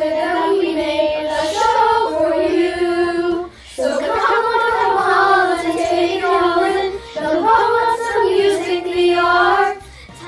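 A group of children singing together in a musical-theatre song, holding long notes in three phrases with short breaks about three and a half and seven seconds in.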